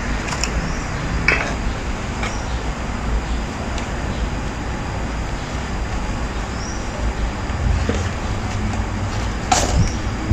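Cardboard gauge box being opened by hand: a few light crackles and ticks as the paperboard flaps are pulled open, the sharpest near the end, over a steady low background rumble.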